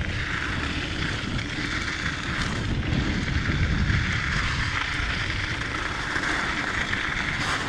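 Mountain bike descending a dirt trail at speed: steady wind noise on the microphone mixed with the rumble of the tyres rolling over the ground.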